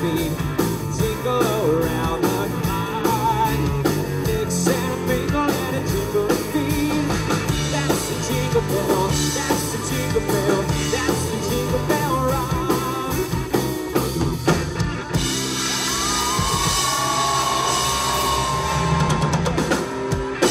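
Live rock band playing: male singing over drum kit, bass and guitars. About fifteen seconds in, the steady beat stops and the band holds a final ringing chord with cymbals washing over it.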